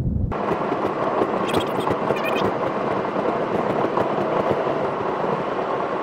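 Even, rough hiss of road and wind noise inside the cabin of a moving BMW i3. Just after the start the low rumble cuts out abruptly and the brighter hiss carries on steadily.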